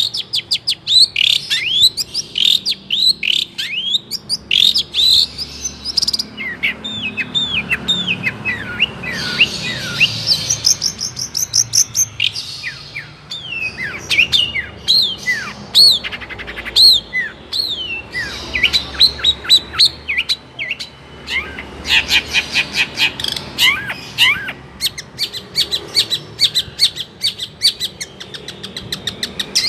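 Songbird song: a fast, continuous stream of chirps and falling whistled notes, broken by rapid repeated-note trills around the middle and again near the end.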